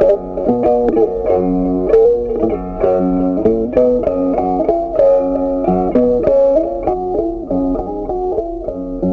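Background music: a plucked guitar tune playing a steady run of notes.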